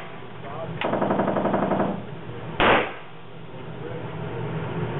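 Handgun fired in an indoor shooting range. A sharp crack comes about a second in, then about a second of rapid rattling, then one loud shot about two and a half seconds in.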